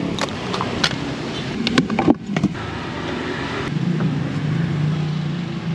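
Motorbike street traffic: engines running with a steady low hum, and a few sharp knocks around two seconds in.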